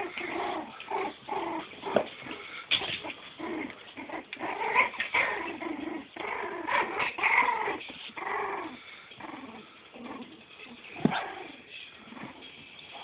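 Four-week-old Cavalier King Charles Spaniel puppies whimpering and yipping: many short rising-and-falling cries overlapping, thinning out after about nine seconds. A single sharp knock about eleven seconds in.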